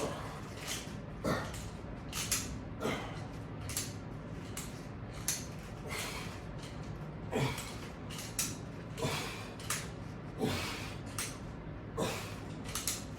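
A person's short, forceful breaths or snorts, repeating about once or twice a second while working against a resistance band in rapid pulls.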